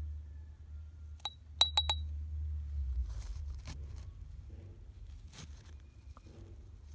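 A metal spoon clinks against a glass jar a few times in quick succession, with bright ringing ticks, while tipping dry soil crust into the jar. It then scrapes and scoops at the crusted soil in a few short strokes.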